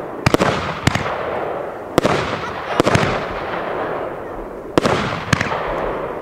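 Röder "Blau! Orange & Lemon" firework battery firing its shots: about eight sharp bangs, some in quick doubles, with a rushing hiss between them.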